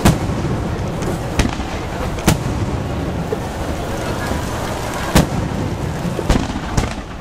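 Aerial firework shells bursting: about six sharp bangs at irregular intervals, the first right at the start and two close together near the end, over a steady background noise.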